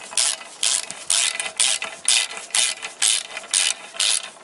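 Socket ratchet clicking in short bursts, about two strokes a second, as it is swung back and forth to run down a clutch pressure-plate bolt. The bolts are being snugged lightly and evenly, short of their final torque.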